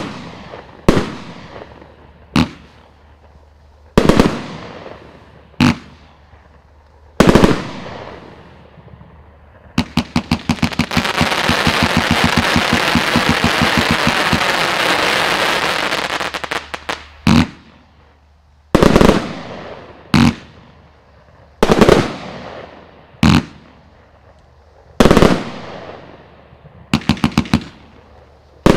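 Riakeo Cyttorak 142-shot compound firework cake firing. Single shots come about every second and a half, each with a fading tail. About ten seconds in, a rapid volley of shots over a dense crackle lasts some six seconds, then single shots resume.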